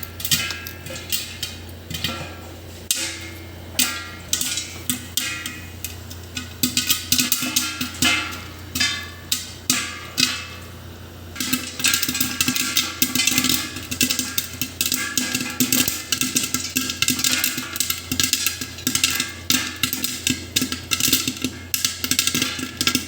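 Popcorn kernels popping inside a covered pressure cooker, sharp pops and knocks against the metal pot and lid. The pops come scattered at first, then grow dense and almost continuous about halfway through.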